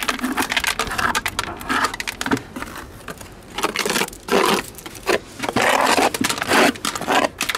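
A wooden spatula scraping small sea snails off rough rock in several noisy strokes, each about a second long. Shells click and clatter as they drop into a plastic bucket.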